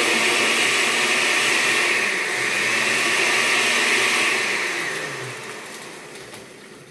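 Blender with a stainless steel jar running, crushing ice into a pisco sour mix as it turns semi-frozen. About four seconds in it is switched off and the motor winds down over the next two to three seconds.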